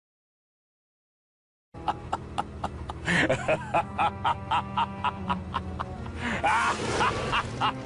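Evil laugh sound effect over music with a steady ticking beat, starting nearly two seconds in; the laughing voice comes through twice.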